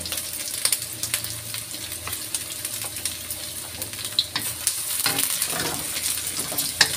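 Sliced shallots and garlic sizzling in oil in a stainless steel wok, with a wooden spatula stirring and scraping against the pan. The aromatics are being fried at medium heat until wilted, and the frying and stirring get louder about five seconds in.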